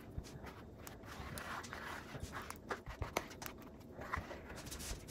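Plastic epoxy spreader scraping across a wet epoxy pour on an end-grain cutting board: faint, irregular scraping with scattered light clicks.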